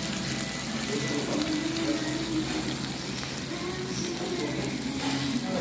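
Stir-fried squid in red chilli sauce sizzling in a hot stone pot: a steady hiss.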